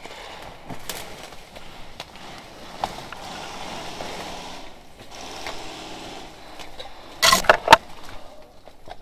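Someone pushing through dense undergrowth, leaves and stems rustling and brushing. About seven seconds in there is a brief loud cluster of three or four sharp cracks.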